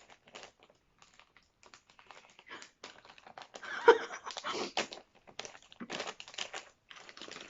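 A snack packet of caramel popcorn being handled and opened, making irregular crinkling and crackling, busier from about halfway. About four seconds in there is one short, loud pitched sound.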